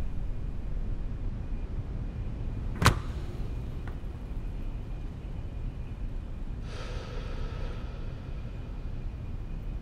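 Sound-design ambience: a steady low rumble with one sharp click about three seconds in, then a faint shimmering tone entering near seven seconds.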